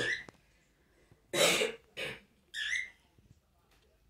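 A person coughing: three short, harsh coughs about a second and a half in, the first the loudest, followed by a few faint ticks.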